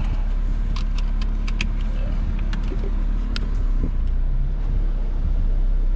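Car heard from inside the cabin: a steady low rumble, with a few sharp clicks and taps in the first half.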